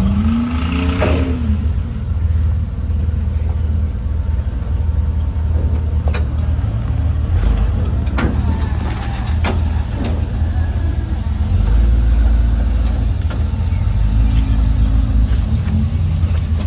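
Off-road truck engine running on a rock-crawling trail, with a short rise in revs near the start and several sharp clunks in the middle.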